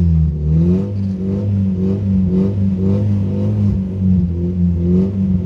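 Toyota Cynos EL44's 5E-FHE four-cylinder engine running under throttle, heard from inside the cabin: a steady drone with a higher note that wavers up and down about twice a second, as the car bogs down in snow.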